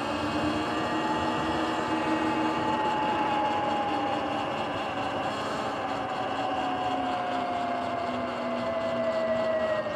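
Sur-Ron Light Bee electric dirt bike riding on pavement: a steady whine from the electric motor and drivetrain over tyre and wind noise. The whine sinks slowly in pitch through the second half.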